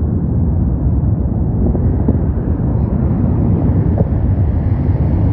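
Airliner jet engines running as a roar that slowly builds and grows brighter over the few seconds, heard through the microphone as a low rushing noise.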